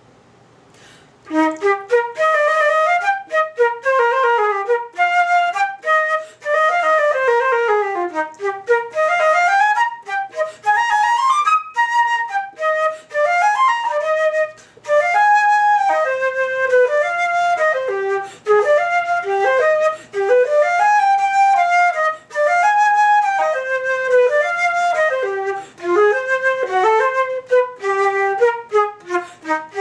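Solo concert flute playing a fast étude: quick rising and falling runs and arpeggios, with brief pauses between phrases. The playing starts about a second in.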